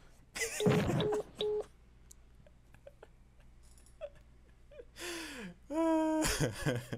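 A cartoon character laughing, with three short beeps about a second in. Near the end comes a voice-like sound sliding down in pitch, then a held tone.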